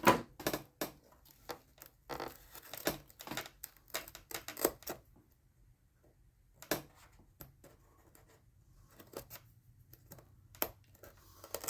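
Irregular light scrapes, clicks and taps of hand work on a balsa model-plane fuselage as old glue is cleaned off the joint, with a quiet pause about halfway through.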